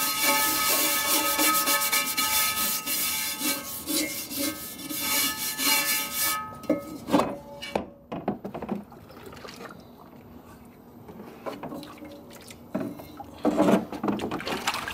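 A stiff scrub brush scrubbing a cast iron skillet in rapid strokes, stopping abruptly about six seconds in. Then water sloshing and splashing as the skillet is lifted and turned in a tub of vinegar and water, part of scrubbing off loosened rust.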